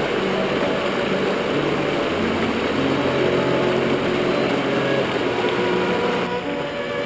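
Rushing water of a rocky mountain creek tumbling over boulders, a steady hiss, with background music of held notes at changing pitches laid over it.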